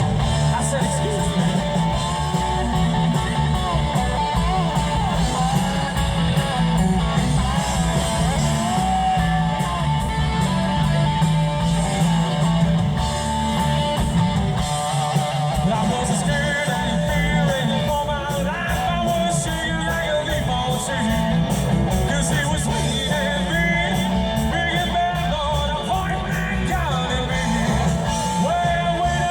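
Live rock band playing a song with a singer, electric guitar and heavy bass, heard from the audience through loud outdoor speakers.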